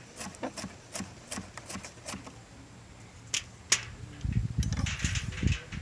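Knife chopping bell pepper on a cutting board: a run of light, quick taps, then two sharper chops. Near the end a low rumbling noise comes in.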